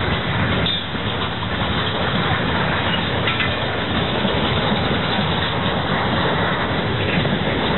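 Freight cars (boxcars, a gondola and covered hoppers) rolling past, a steady rumble of steel wheels on rail with a few sharp clicks and clanks.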